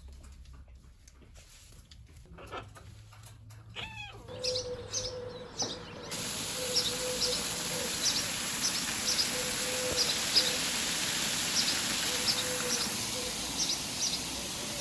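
Birds chirping in bushland: short high chirps repeat about once a second over a steady hiss, with a falling call about four seconds in.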